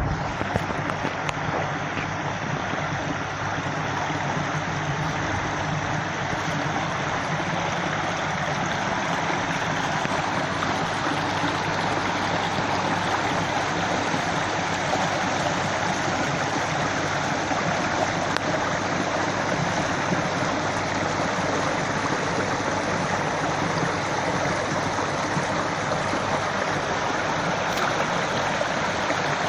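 Stream water flowing, a steady even rush, with a few small clicks about a second in.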